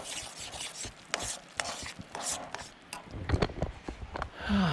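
Kitchen utensil clicking and scraping against camp cookware and food in irregular short knocks, as food is dished up or cut.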